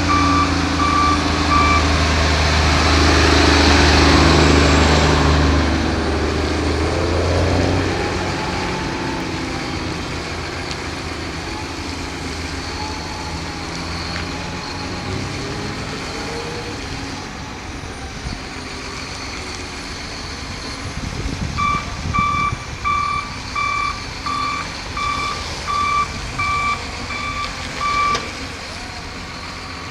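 John Deere 744K wheel loader's diesel engine working, loudest in the first few seconds and then settling to a lower run. Its reversing alarm beeps about twice a second at the start and again for several seconds near the end, the sign that the loader is backing up.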